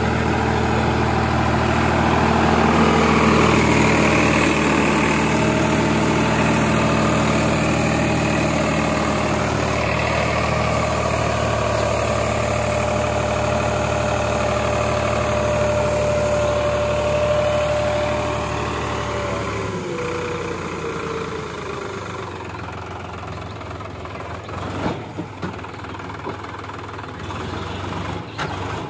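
Sonalika tractor's diesel engine running at raised revs with a steady whine while the hydraulics tip the trailer's bed. About twenty seconds in the pitch falls and the engine settles to a lower, quieter run, with a few knocks near the end.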